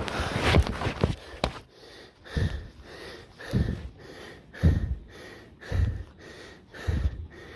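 A man panting heavily into the microphone, winded after running: deep, loud breaths roughly once a second.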